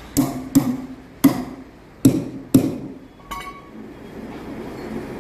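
A hammer strikes about six sharp blows at uneven intervals in the first three seconds, each with a short ring. The last blow is lighter and leaves a thin metallic ring.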